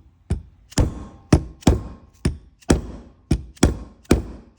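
Brake caliper pistons being tapped into their bores past stiff rubber seals: about ten sharp knocks, roughly two a second, each dying away quickly.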